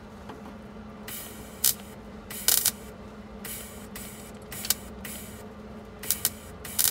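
MIG welder laying short tack welds on a sheet-steel floor pan: about half a dozen brief bursts, each well under half a second, over a steady hum.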